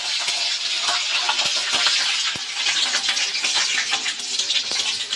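Garlic cloves and black peppercorns frying in hot oil with mustard seeds in a metal kadhai: a loud, steady sizzle with frequent small crackles and pops.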